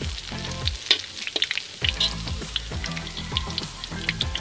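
Ripe-banana fritters deep-frying on leaves in a wok of hot oil, sizzling with a dense run of sharp crackles.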